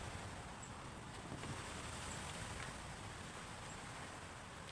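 Faint steady background hiss and low rumble, with a few light clicks.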